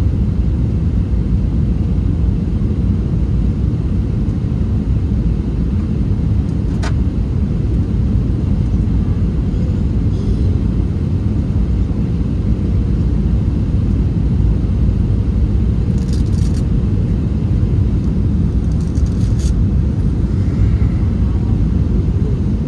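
Steady low rumble inside the cabin of an Airbus A321 airliner on short final approach, with a few faint clicks partway through.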